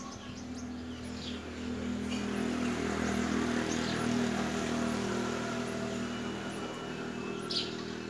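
A steady low mechanical hum, like a motor or passing vehicle, swells through the middle and eases off again. A few short high bird chirps sound over it, the loudest near the end.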